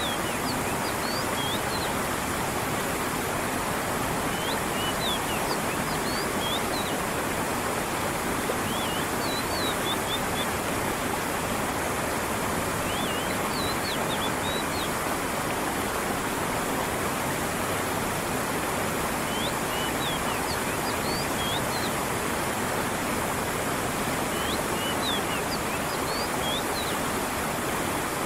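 Creek water running and splashing steadily, with small groups of short, high bird chirps every few seconds.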